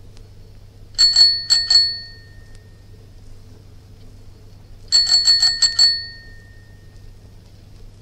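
Bicycle bell rung in two bursts: three dings about a second in, then a quicker run of about six dings a few seconds later, each ringing out briefly.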